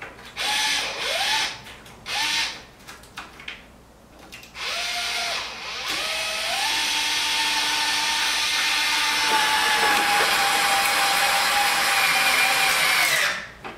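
Cordless drill driving screws up into a car's front splitter: three short bursts, each with the motor whine rising as it spins up, then one long run of about seven seconds whose pitch sags slightly under load before it stops just before the end. The screws are being started, not driven all the way in.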